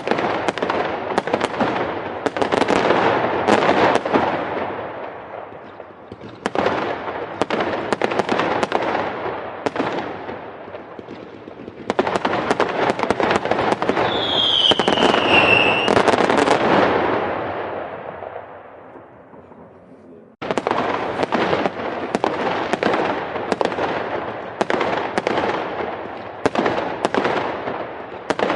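Fireworks going off in dense volleys of rapid bangs and crackling pops. Around the middle, one firework gives a whistle falling in pitch. The volleys fade away twice and start again abruptly.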